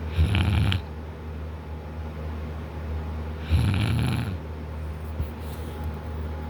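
A man snoring in deep sleep, lying on his back with his mouth wide open: two loud, rattling snores about three seconds apart, each under a second long.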